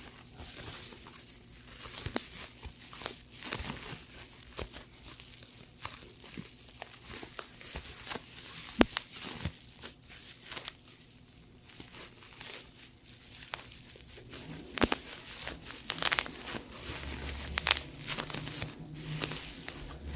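Plastic bubble wrap being handled and popped: crinkling plastic with irregular sharp pops, a few louder ones scattered through.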